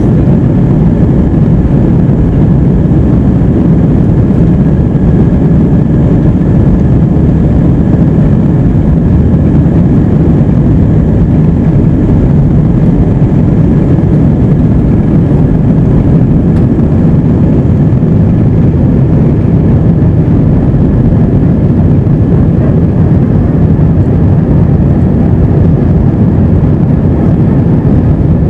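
Airbus A320's jet engines at takeoff thrust, heard inside the cabin over the wing: a loud, steady roar with a faint steady whine above it, through the takeoff roll and into the climb after liftoff.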